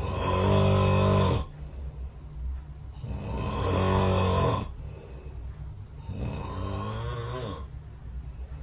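A sleeping person snoring: three snores about three seconds apart, each about a second and a half long.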